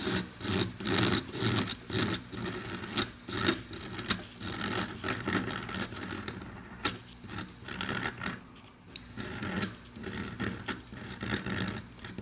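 Hand-held rotary tool with a small burr grinding into briar pipe wood in short, irregular scratchy strokes, carving a rough texture into the bowl's surface.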